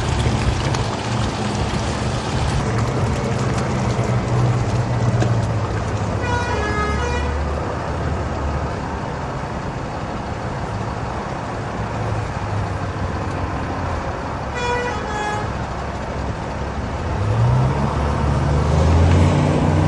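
Heavy diesel engine running steadily, with two short horn toots about eight seconds apart, then the engine revving up near the end.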